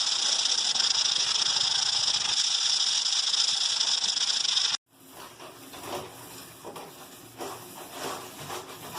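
A loud, steady hiss that cuts off abruptly about five seconds in. Quieter rustling and soft knocks follow.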